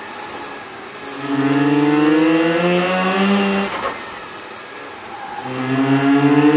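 Mazda RX-8's two-rotor rotary engine heard from inside the cabin, accelerating hard twice. Off throttle at first, it pulls with rising pitch for about two and a half seconds, lifts off, and comes back on throttle near the end, rising again.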